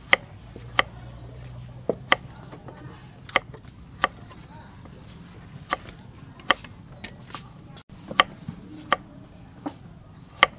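Kitchen knife slicing peeled garlic cloves on a thick wooden chopping block: single sharp knocks of the blade against the wood, about a dozen, coming unevenly, roughly one a second.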